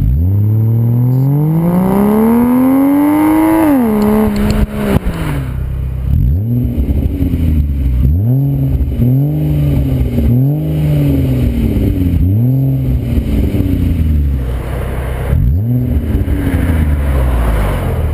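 Ford Fusion Sport's 3.5L Cyclone V6 through Magnaflow mufflers with the resonator deleted, revved in park. One long rev climbs for about four seconds and drops back to idle. A string of short throttle blips follows, about a second apart.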